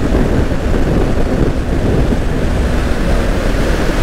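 Steady wind rush on the microphone over the Yamaha Fazer 150's single-cylinder engine running while the motorcycle is ridden at speed.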